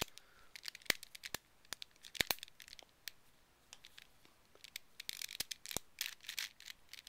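Plastic pieces of a holey megaminx clicking and rubbing as the puzzle is handled and turned, to work back in a piece that keeps popping out. Scattered sharp clicks, with a busier run of clicks and scraping about five seconds in.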